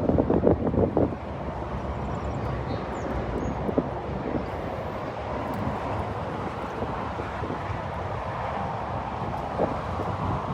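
Wind buffeting the microphone as a steady low rumble, with a few stronger gusts in the first second.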